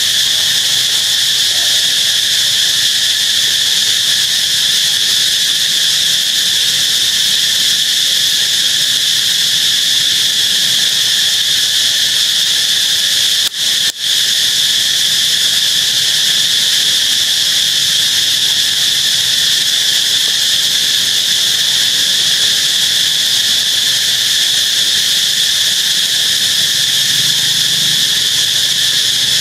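Loud, steady high-pitched drone of a chorus of insects, unbroken except for two brief dropouts about halfway through.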